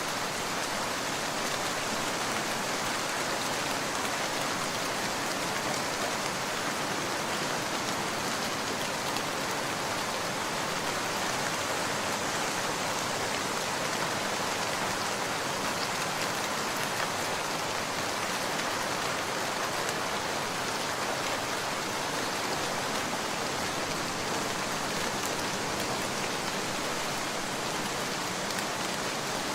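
Steady rain falling: an even hiss with a fine patter of drops, unchanging throughout.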